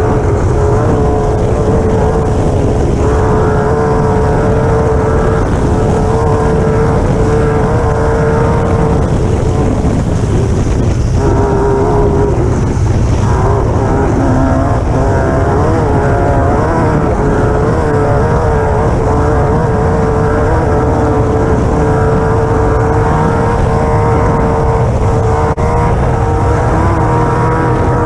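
Class 9 desert race buggy's air-cooled Volkswagen engine running hard at steady high revs, over a dense low rumble. The pitch wavers briefly about halfway through.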